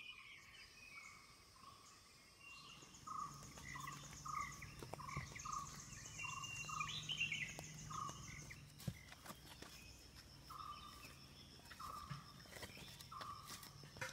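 Birds calling: one repeats a short note two to three times a second, with a pause midway, and others add higher chirps over a steady high insect buzz. A few faint knocks come in the second half.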